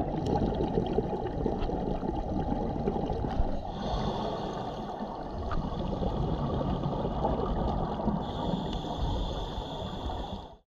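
Scuba diver's exhaled bubbles heard underwater through the camera, a dense gurgling rumble with a higher hiss joining twice, about four and eight seconds in. The sound cuts off suddenly just before the end.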